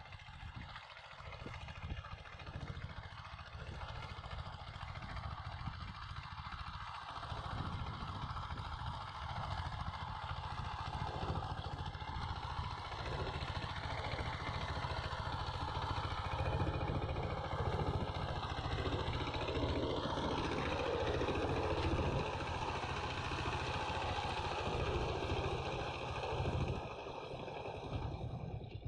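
Single-cylinder diesel engine of a two-wheel power tiller chugging steadily under load as it works the soil. It grows louder as the machine comes closer, is loudest a little past the middle, and eases off slightly near the end.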